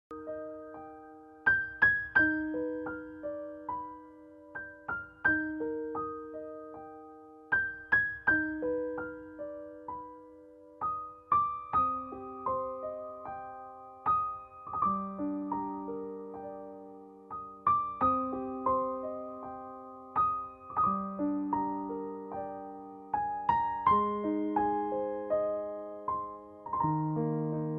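Background music: slow, gentle solo piano, with single notes and chords struck and left to ring and fade.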